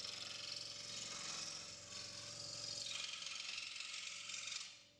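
Proxxon DS460 scroll saw running, a steady hum and hiss from its induction motor and reciprocating blade, dying away near the end.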